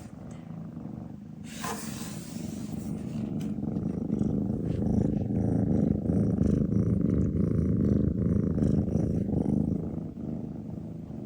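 Domestic cat purring with a steady, rapid rumble that grows louder from about four seconds in and eases off near the end.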